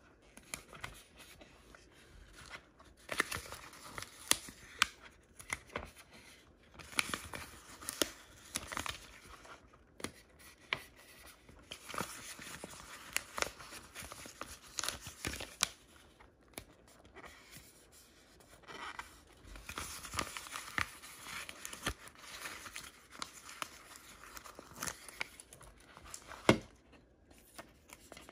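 Thin plastic or foil blind-bag wrappers being torn open and crinkled by hand, in irregular bursts of crackling with sharp clicks and taps; the loudest click comes near the end.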